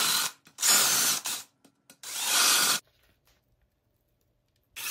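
Cordless drill with a 3/4 inch spade bit boring shallow holes into the foam of a taxidermy manikin head, in three short bursts under a second each, then stopping about three seconds in.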